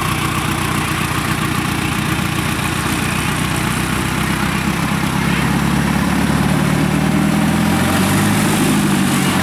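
Engine of a tracked rice-hauling cart running as the loaded cart moves along a dirt path; about five seconds in, its note rises and grows louder.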